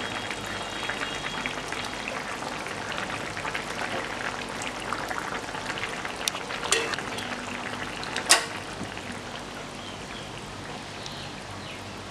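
Thin curry of water spinach, potato and fish boiling in a metal pan, bubbling and crackling steadily as a steel ladle stirs it. Two sharp clinks of the ladle against the pan come about a second and a half apart, past the middle; the second is the louder.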